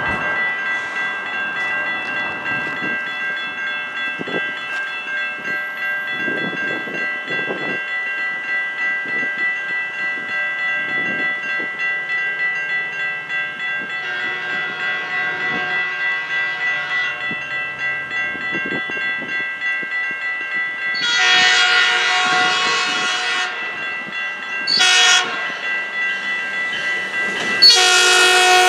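Railroad-crossing warning bell ringing steadily at a lowered crossing. An approaching Metrolink commuter train's horn then sounds the grade-crossing signal as a chord: a long blast, a short blast, then a second long blast as the train reaches the crossing.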